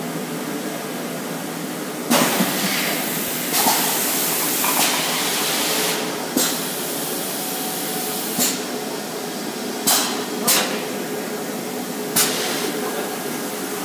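EPS foam cup moulding machine running: a steady mechanical hum, a long loud hiss starting with a clack about two seconds in and lasting some four seconds, then sharp clacks with short hisses every second or two as the moulds work.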